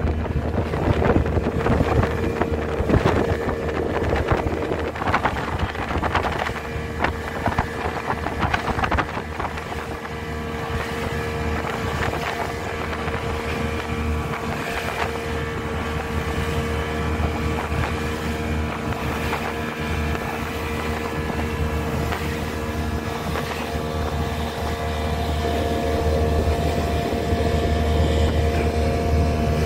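A boat's engine running steadily with a low drone, with wind buffeting the microphone and water rushing past the hull, gustier for the first ten seconds or so.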